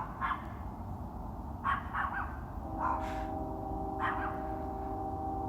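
A dog barks several times over a steady low rumble, the deep jet-like noise heard in the sky. About halfway through, a steady hum with several pitches joins in.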